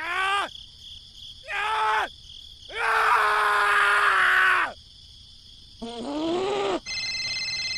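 Cartoonish voice sound effects: a few short vocal groans falling in pitch and one long drawn-out groan, then a steady electronic tone near the end.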